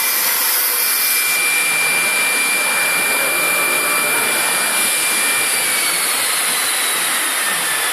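Tekcel VSR CNC router running: a steady high whine over a loud, even rushing hiss. About five seconds in, the whine begins to slide slowly down in pitch.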